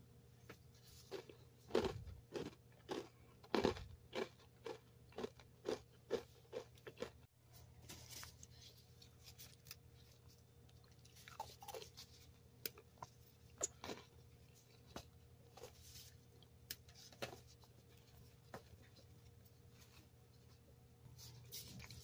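Crunchy oats-and-honey granola bar crunching: a quick run of crisp crunches about two a second in the first seven seconds, loudest near two and four seconds in, then scattered single cracks and crumbling as the bar is broken apart.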